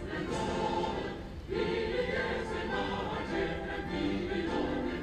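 A choir singing, several voices holding long notes together, with a new phrase coming in about a second and a half in.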